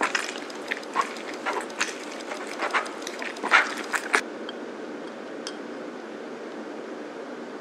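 Half a lemon pressed and twisted on a ceramic reamer juicer: a run of short scrapes and rubs of rind on ceramic for about four seconds, the loudest a little past three seconds, then it stops, leaving a steady low hiss.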